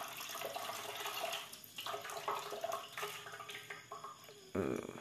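Water poured from a bowl splashing into a large metal basin of water. A short, louder sound comes near the end.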